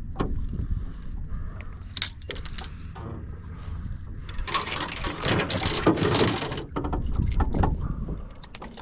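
Fishing lures and their metal hooks clinking and rattling while tackle is handled to change baits, with a denser stretch of clattering and rustling in the middle.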